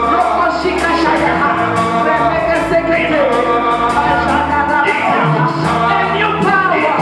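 Worship music with singing over a steady beat and bass.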